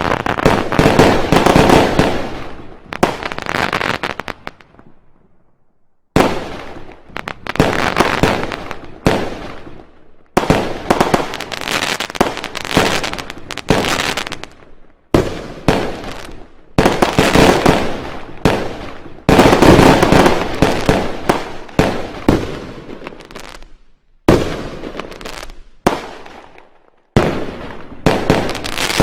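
Fireworks and firecrackers going off in rapid, dense volleys of bangs and crackles. The volleys come in several runs, each starting and cutting off suddenly.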